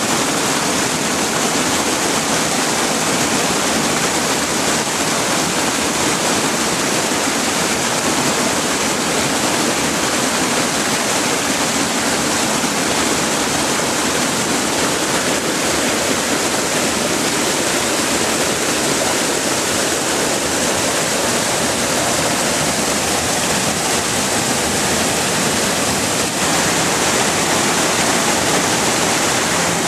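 Floodwater rushing and churning through a swollen creek channel: a loud, steady rush of water.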